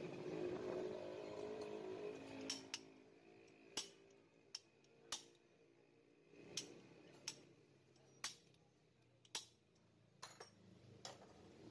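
About ten light, sharp metallic clicks and taps, irregularly spaced, from small metal engine parts being handled.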